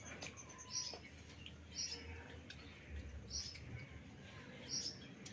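A small bird calling: a short, high chirp repeated every second or so.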